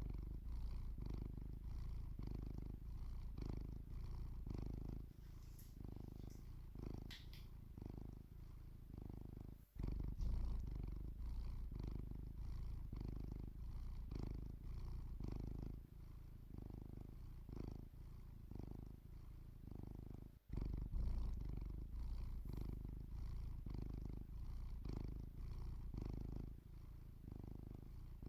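Domestic cat purring steadily, a low rumble that swells and fades in waves about once a second. It breaks off for a moment twice.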